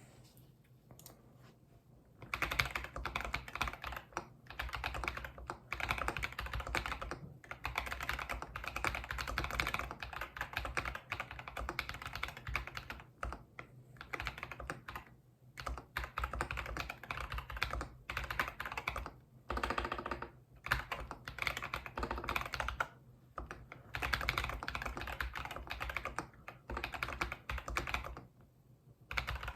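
Typing on a Keynovo IF98 mechanical keyboard with lubed Akko Vintage White linear switches, PE foam, tape mod and lubed stabilizers: fast runs of keystrokes in bursts of a few seconds with short pauses between them, starting about two seconds in.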